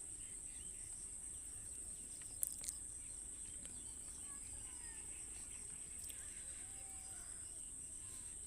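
Crickets chirring in a steady high-pitched drone, with a couple of faint clicks about two and a half seconds in.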